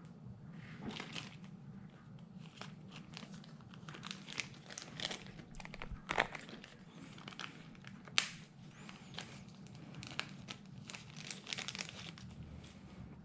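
Plastic packaging crinkling and rustling as a RAM module is handled and unwrapped, with irregular sharp clicks, the loudest about six and eight seconds in.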